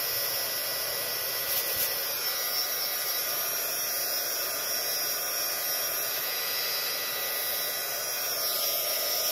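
Handheld craft heat tool running steadily, a constant hiss of blowing hot air as it dries wet watercolour paint on a paper envelope.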